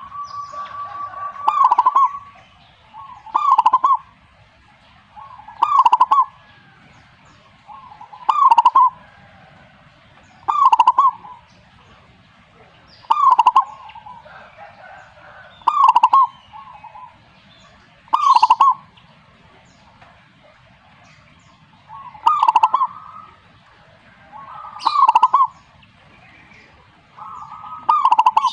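Zebra dove (perkutut) cooing: a short phrase of rapid notes, repeated about every two and a half seconds. Fainter bird calls sound between the phrases.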